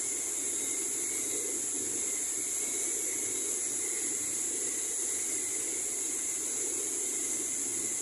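Steady rushing noise of the Düden waterfall's falling water, heard from a rock tunnel behind the falls.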